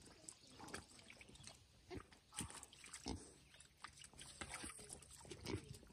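Piglets rooting with their snouts in a muddy puddle: a few short, soft grunts and wet snuffling and splashing sounds, faint.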